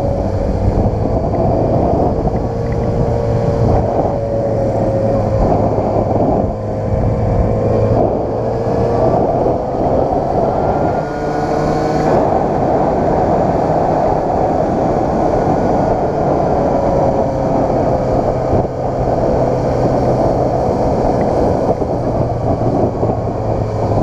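Yamaha XJ6 motorcycle's inline-four engine running while riding at town speed, its note rising and falling gently with the throttle, with wind noise on the microphone.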